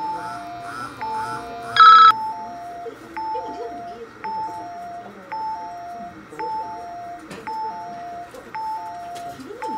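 A two-note electronic chime, a higher note followed by a slightly lower one, repeating about once a second. A short, louder ringing tone breaks in about two seconds in.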